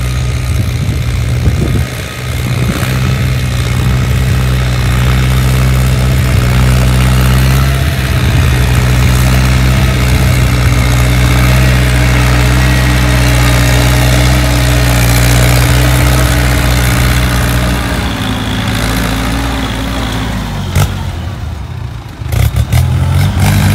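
Ford New Holland 6610 tractor's four-cylinder diesel engine running steadily under load while pulling a disc plough through the soil, its note sagging briefly near the end.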